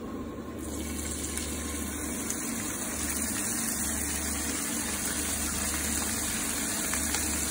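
Diced pancetta sizzling in hot olive oil in a frying pan. The sizzle starts suddenly about half a second in as the first pieces hit the oil and grows steadily louder as more are dropped in by hand.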